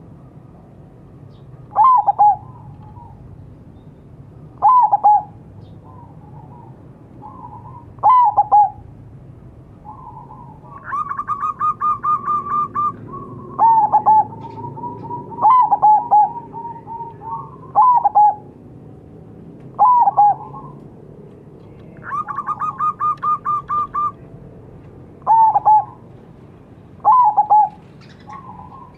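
Zebra dove (perkutut) cooing: short, loud, clipped coos every two to three seconds, twice broken by a rapid run of staccato notes lasting about two seconds.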